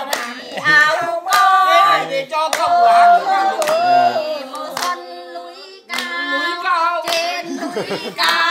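A voice singing a song, holding long notes, while people clap their hands at uneven moments throughout.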